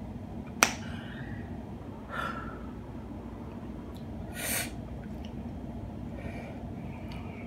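A person breathing and making mouth sounds while chewing food, with a sharp click about half a second in and a short hissing breath or sniff around the middle. A low steady hum runs underneath.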